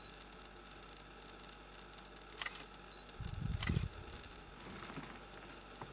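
Camera handling noise over a faint hiss: two sharp clicks a little over a second apart around the middle, the second with a short low rumbling bump.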